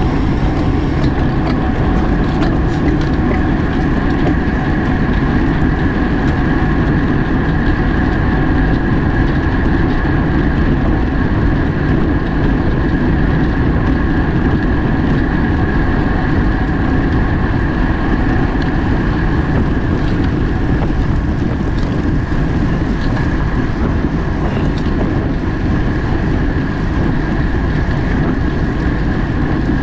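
Wind rushing over the microphone of a camera riding on a racing bicycle during a criterium, a loud, steady rush with a faint steady whine over it.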